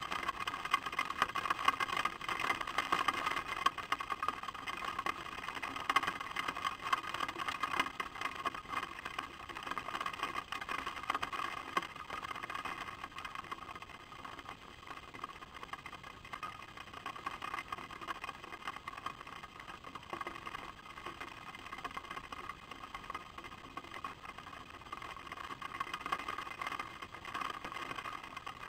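Rain falling on an outdoor nest camera and nest: a steady hiss with many small irregular ticks, slightly lighter in the middle.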